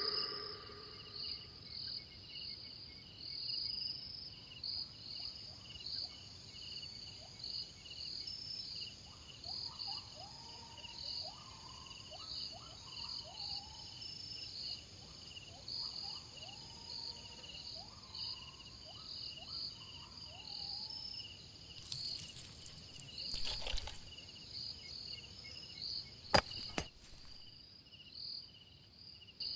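Night ambience of crickets chirping in a steady, regular rhythm, with fainter, lower animal calls in the middle. Two short, noisy sound effects break in near the end.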